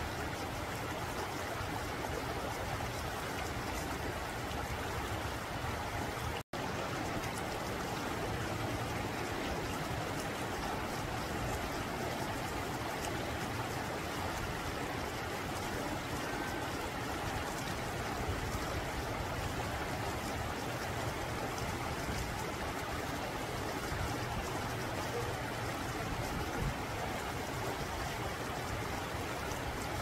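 Shallow mountain stream running over and between rocks: a steady babbling, trickling rush of water. The sound cuts out for an instant about six seconds in.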